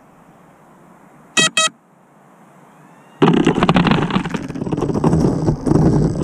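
Two short electronic beeps, then about two seconds later a grounded FPV quadcopter's brushless motors and propellers spin up loudly in uneven surges, with rapid clicking through the noise.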